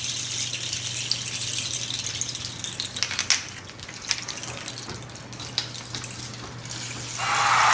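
Rain stick turned over, its pebbles cascading with a rain-like hiss that thins out into scattered ticks as the last of them trickle down. Near the end a louder cascade starts as it is tipped again. A faint steady low hum runs underneath.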